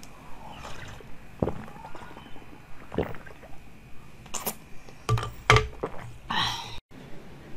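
Jelly being sucked and slurped from a tube: about six short, wet slurping and smacking mouth sounds, roughly a second apart.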